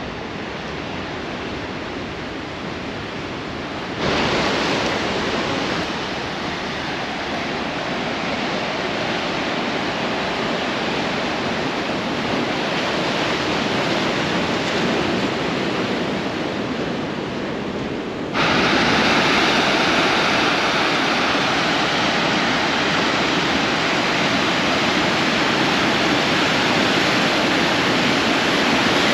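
Atlantic Ocean surf: a steady wash of breaking waves, a dense hiss with no distinct tones. The level jumps abruptly twice, about four seconds in and again past the middle, the last stretch being the loudest.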